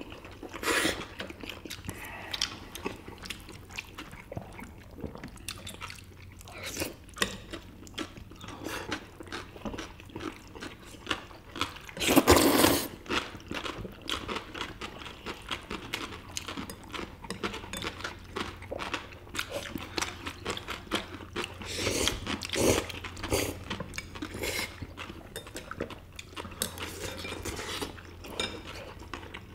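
Several people eating spicy mixed noodles and dumplings: slurping noodles, chewing, and chopsticks knocking on bowls, in scattered short sounds. The loudest comes about twelve seconds in.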